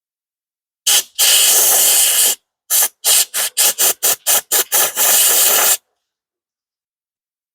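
Can of compressed air (air duster) spraying in hissing blasts to blow dust out of a car's cabin temperature sensor opening. There is a brief puff, then a blast of about a second, then a quick run of about eight short puffs, and a final longer blast.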